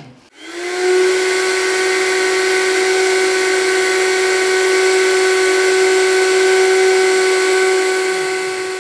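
Small electric spice grinder running, grinding dry spices: a steady high whine that spins up within the first second and begins to ease off near the end.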